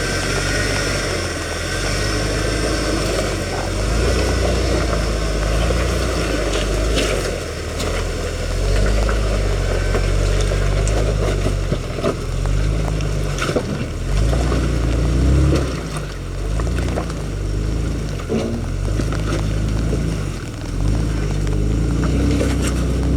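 Jeep engine crawling over rocks, its revs swelling and easing every second or two, with a few sharp knocks through it.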